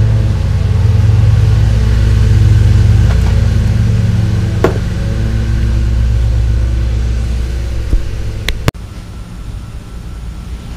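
A steady, loud low mechanical hum, like a motor running, with a single sharp knock a little under halfway through. Two sharp clicks come just before the hum cuts off abruptly about nine seconds in, leaving a much quieter background.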